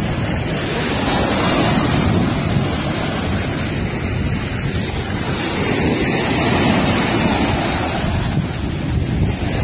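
Small surf waves washing up and foaming over wet sand at the water's edge, a steady rushing, mixed with wind buffeting the microphone.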